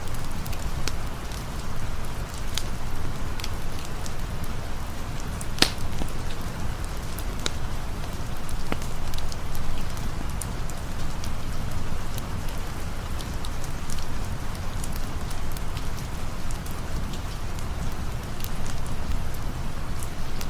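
Steady rain with scattered sharp crackles and pops of a campfire, one louder pop a little before six seconds in.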